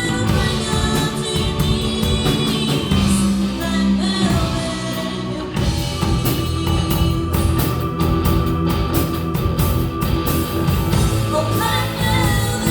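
Live rock music: a singer with guitar and band backing, with a steady drum beat.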